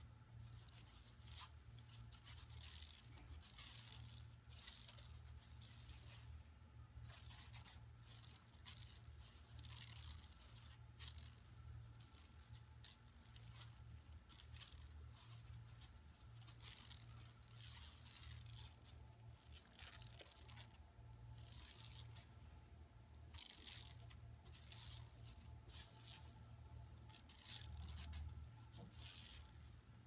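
Long natural fingernails scratching a shopping bag in quick, irregular runs of strokes, over a steady low hum.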